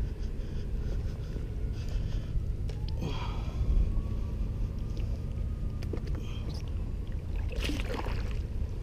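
Wind rumbling on the microphone, with the faint whine of an electric RC speedboat's brushless motor (a TFL Zonda with a 2075kv motor) running on the water; the whine rises in pitch about three seconds in and then holds steady.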